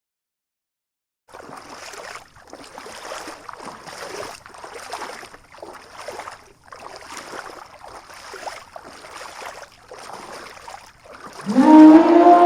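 An elephant call: after a rhythmic swishing noise at about one stroke a second, a loud pitched elephant bellow starts near the end, rising in pitch at first and then holding.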